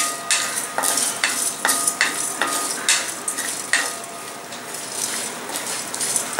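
Wooden spatula stirring and scraping whole spices (coriander seeds and dried red chilies) around a dry metal kadai, in irregular strokes a few times a second. The pan rings faintly after some strokes. This is the dry-roasting of whole spices for a masala.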